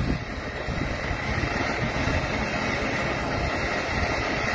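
Handheld gas torch burning steadily, its flame heating the screw in the hub of a washing machine's stainless steel drum to soften the Loctite thread-locker so the screw can be undone.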